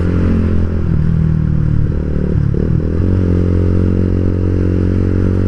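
Yamaha Vixion motorcycle's single-cylinder engine running steadily under way, heard from the rider's seat. Its note shifts about two seconds in and settles again a second later.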